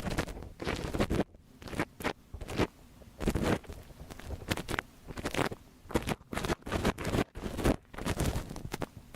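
Close-up ear-cleaning strokes on a binaural microphone's ear: irregular scratchy rubbing and scraping, about one or two strokes a second with short pauses between.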